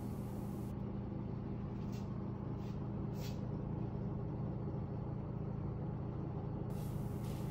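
A steady low machine hum made of several low tones, with two faint ticks a couple of seconds in.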